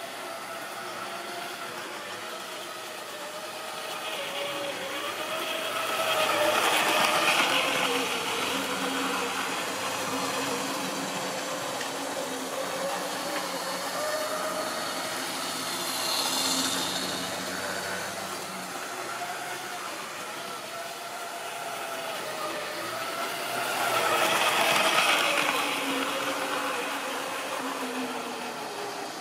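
Model railway train running round the layout: the electric motor's wavering hum and the wheels rumbling over the track. It swells loud twice as the train passes close by, with a smaller rise between.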